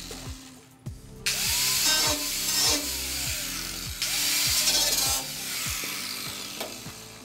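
Angle grinder with a cutting disc cutting through the corroded steel of a car's rear wheel arch, in two loud bursts of about a second or more each. Background music with a steady bass rhythm plays throughout.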